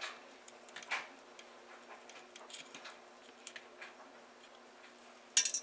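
Faint, scattered ticks and clicks of a small screwdriver backing screws out of a circuit board in a plastic light housing, with one sharp click near the end.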